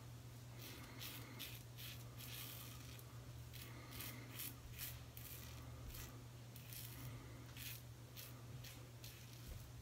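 Straight razor fitted with a Gillette 7 O'Clock Sharp Edge blade scraping through lathered stubble in short, quick strokes, several a second in bursts. Faint.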